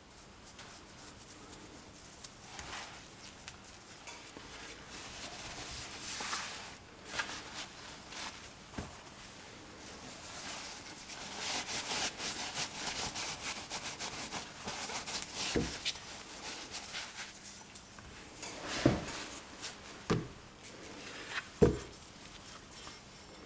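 Hand work in a workshop: irregular scraping and rubbing, then four sharp knocks near the end.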